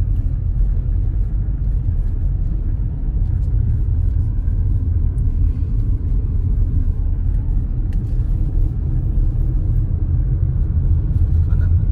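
Porsche Macan driving, heard from inside the cabin as a steady low rumble of engine and road noise.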